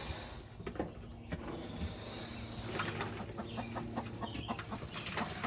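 A hen clucking in a quick, agitated run of short calls, upset at being disturbed while sitting in the nesting box to lay.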